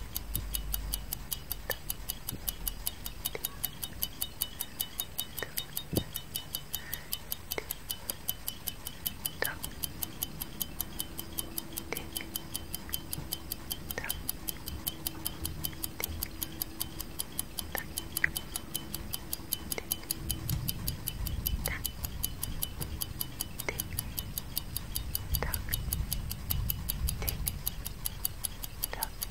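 Clock tick-tock sound effect ticking steadily at an even pace, with scattered louder clicks over it.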